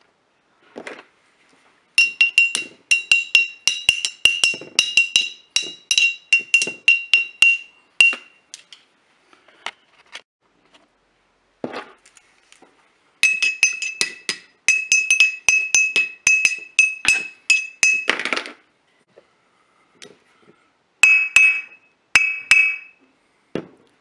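Glass vodka bottles tapped in fast rhythmic runs of bright clinks, about four a second, each ringing at the same high pitch, laid out as a percussive beat. There are two long runs and a short burst near the end, with a few dull knocks in the gaps.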